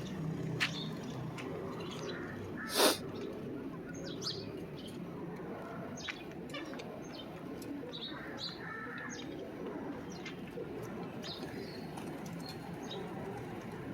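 Birds chirping in short, scattered calls over a steady background hum, with one sharp knock about three seconds in.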